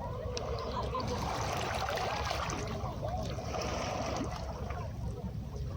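Calm sea waves washing onto a beach, the wash swelling in the middle, with gurgling water over a low steady rumble.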